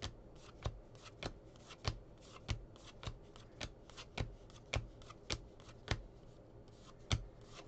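A stack of cardboard baseball trading cards being flipped through by hand, one card at a time: a sharp snap roughly every half second as each card comes off the stack, with light paper rustling between. There is a slightly longer pause near the end before the last snap.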